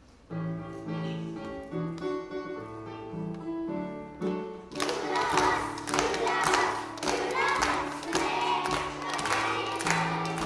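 A song begins with an instrumental introduction of held chords over a bass line. About five seconds in, a children's choir starts singing with rhythmic hand-clapping.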